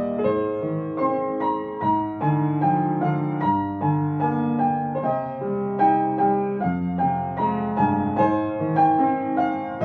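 Piano music: a steady run of notes, about two a second, with chords held underneath.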